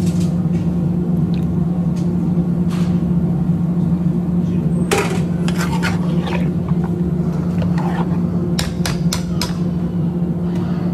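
A metal spoon clinking against a steel cooking pan as spices are added, a few sharp clinks about halfway and a quick run of them near the end, over a steady low hum.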